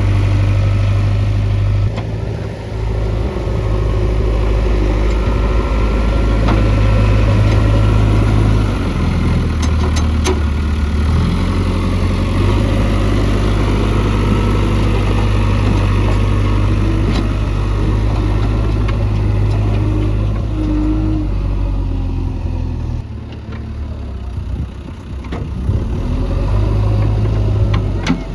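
JCB 3DX backhoe loader's diesel engine running under changing load while digging, its note rising and falling every few seconds. A few sharp metallic knocks from the working equipment come through, and the engine eases off for a couple of seconds near the end.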